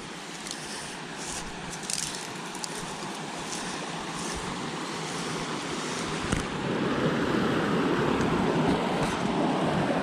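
Mountain creek rushing steadily, louder from about six and a half seconds in, with a few faint clicks.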